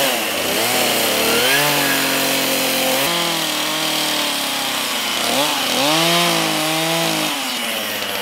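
Stihl chainsaw running hard while cutting into a squared log, its engine pitch rising and falling several times and holding steady at high revs in between.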